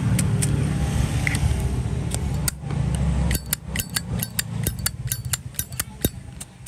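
Low rumble of passing traffic, then a quick run of sharp metallic clicks, about four or five a second, from a brass Zippo lighter and its insert being handled.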